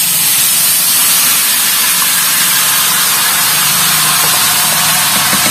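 Ground chili paste sizzling loudly in hot frying oil, a steady hiss with a few faint pops near the end.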